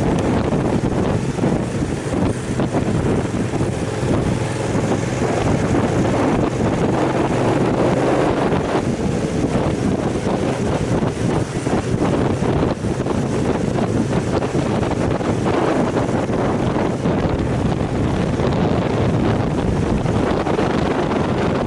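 Wind buffeting the microphone over the running V-twin engine of an Aprilia Caponord 1200 motorcycle cruising at about 30–37 km/h, a steady loud rushing noise.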